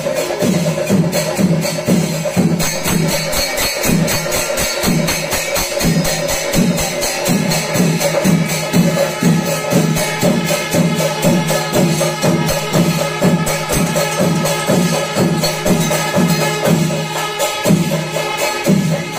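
Kerala temple percussion ensemble playing for an elephant procession: drums beating a steady rhythm of about two to three strokes a second, with clashing hand cymbals and a steady held tone above them.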